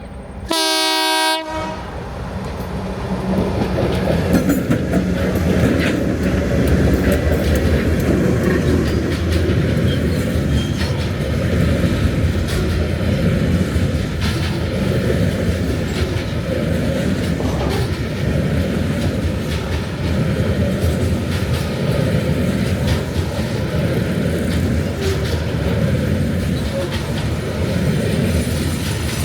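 A diesel locomotive horn sounds one short blast of about a second, then a loaded coal train hauled by 2050 class locomotives with EMD 645 engines runs past, the diesel engines working hard with wheels clattering over the rail joints. The sound builds over the first few seconds and stays loud.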